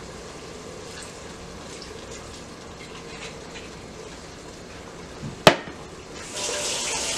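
Dove meat frying in oil with a low steady sizzle, a sharp click about five and a half seconds in, then a louder sizzling hiss near the end as white cooking wine is poured into the hot pan.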